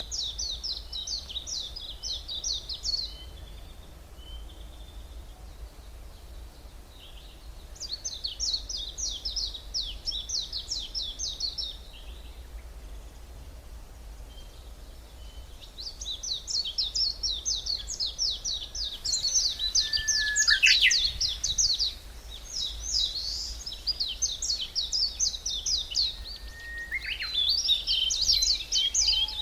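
Woodland songbirds singing: fast, high trilling phrases of many quick notes, each lasting about three to four seconds, with pauses between. In the second half the phrases come almost without a break and overlap.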